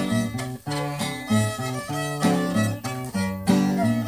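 Acoustic guitar and violin playing a tune together live, the guitar strumming a steady rhythm with moving bass notes under the violin's melody.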